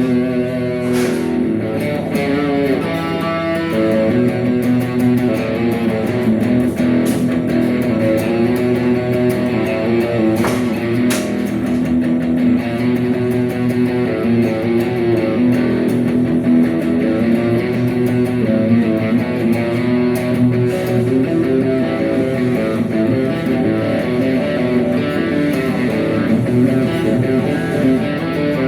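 Rock music with electric guitar playing, bass underneath and frequent sharp hits.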